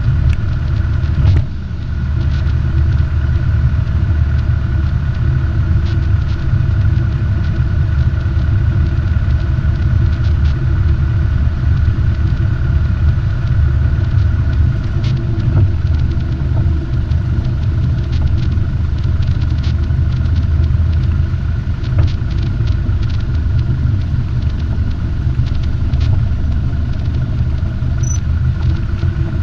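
Robin DR400 light aircraft's piston engine and propeller running at low taxi power, heard inside the cabin as a steady low drone while the plane rolls along the taxiway. The loudness dips briefly about a second and a half in.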